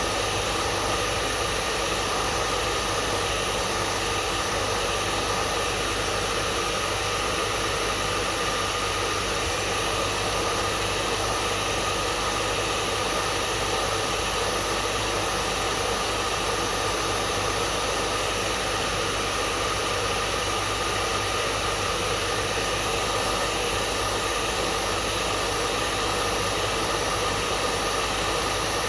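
Hair dryer running steadily: a constant rushing of blown air over a motor's faint steady hum, with no change in level.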